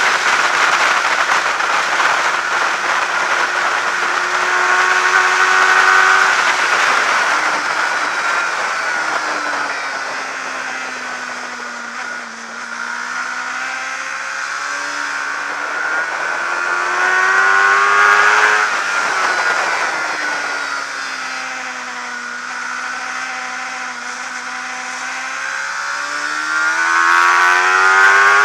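600cc supersport racing motorcycle engine at racing speed, its note climbing through the gears, dropping sharply at each shift, and sinking to a low point as the bike slows for a corner about halfway through before pulling hard again. Heavy wind rush on the onboard microphone runs underneath.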